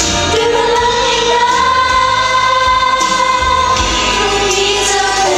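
A young woman singing live into a handheld microphone over a backing track through a PA system, holding a long sustained note in the middle.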